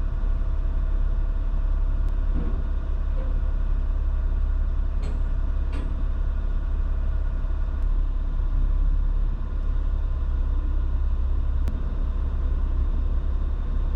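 A vehicle driving: a steady low rumble of engine and road noise that holds even throughout, with a few faint ticks.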